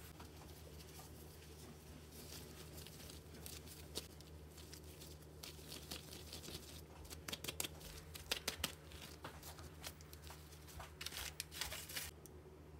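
Rubber-gloved hands working sticky bread dough into buns on parchment paper: sticky, crackling rustles of glove and paper, thickest in two flurries past the middle and near the end, over a faint steady low hum.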